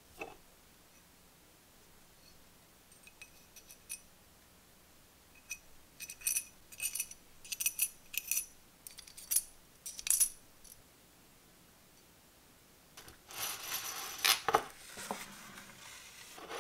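Small metal valve tappets clinking as they are dropped into a miniature four-cylinder model engine's metal cylinder head: a scatter of sharp, ringing metallic clicks. Near the end come a few seconds of rubbing and scraping from the head being handled.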